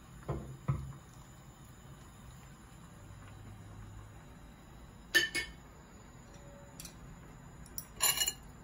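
Dishes and utensils clinking as they are handled and set down: two soft knocks near the start, two sharp clinks about five seconds in, and a quick cluster of clinks near the end.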